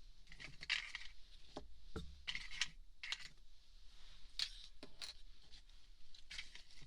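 Small tools and objects being handled and put away by hand: a scatter of light clicks, taps and brief rustling and scraping, close to the microphone.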